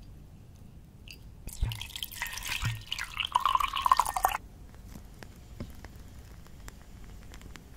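Water poured into a glass, splashing for about three seconds and then stopping abruptly, followed by a few faint small clicks.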